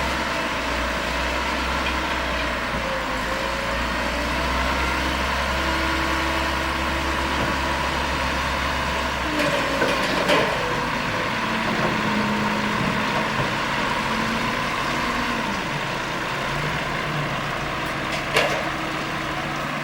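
Heavy diesel earthmoving machinery running, its engine note shifting in pitch, with the low rumble dropping away about half-way. Two sharp knocks come through, one about ten seconds in and one near the end.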